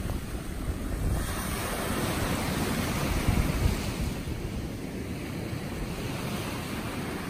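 Small surf washing onto a sandy beach, with wind buffeting the microphone in gusts.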